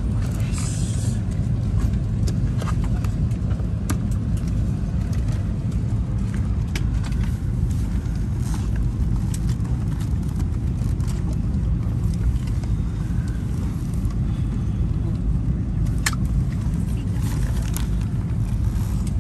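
Steady low rumble of the air-conditioning and ventilation inside an Airbus A321neo passenger cabin, with a few light clicks and knocks scattered through it, the sharpest about 16 seconds in.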